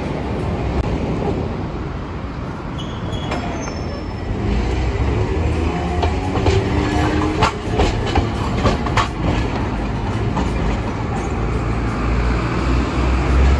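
Hiroshima Electric Railway 1900-series streetcar passing close by and curving through a track junction. Its wheels rumble on the rails, louder from about four seconds in, with a quick run of clacks over the rail joints and crossings in the middle and a faint squeal from the wheels on the curve.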